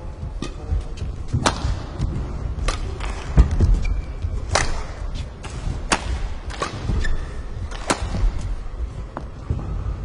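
Badminton rally: sharp cracks of racket strings hitting the shuttlecock about once a second, back and forth, over dull thuds of players' footsteps on the court.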